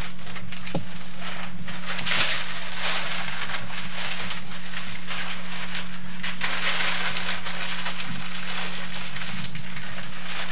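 Newspaper being crumpled and rustled by hand, in irregular crackling stretches that are loudest about two seconds in and again around seven seconds, over a steady low hum.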